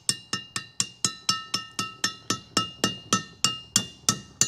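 Ball-peen hammer striking a center punch in quick, even blows, about four ringing metal strikes a second. The punch is raising dings around the bearing race bore of a trailer hub-and-drum so that a loose race will sit tight, a makeshift fix that is meant only to limp a trailer home.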